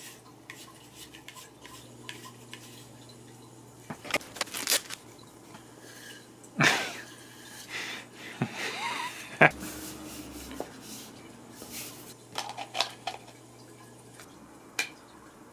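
Scattered clinks, clicks and clattering knocks of small hard objects being handled, in clusters with short gaps between.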